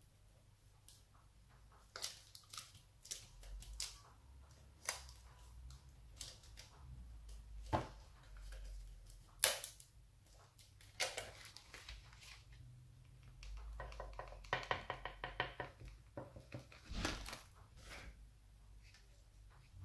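Hands working rhinestone chain trim onto a thin foil-covered container: scattered light clicks, crinkles and rustles, with a short fast run of small ticks about three-quarters through.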